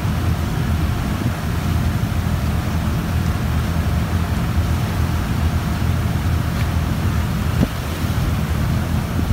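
Boat engine running steadily, a continuous low drone with some wind and water noise.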